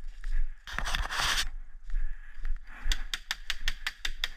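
A brief rustle of brush about a second in, then a rapid string of about ten sharp cracks, some seven a second, from an airsoft gun firing.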